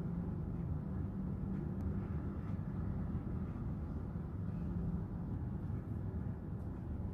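Steady low rumble of background noise with no clear rhythm or pitch, and a few faint ticks from paper stickers being handled.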